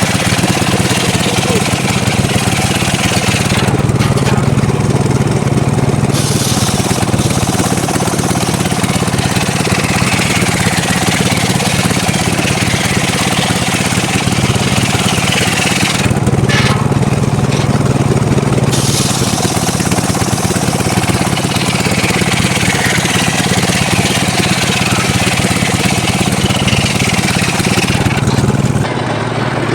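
Engine-driven mobile circular sawmill running steadily, its blade cutting mahogany, with a constant engine hum under a dense cutting hiss. The hiss eases off briefly about four seconds in, again midway, and near the end.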